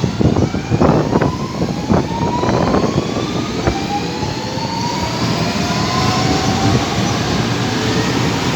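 Alstom Series 2070 electric multiple unit pulling away, its traction motors giving several whining tones that rise steadily in pitch as it gathers speed, over a rumble of the train running on the rails. A string of clanks and knocks comes in the first four seconds.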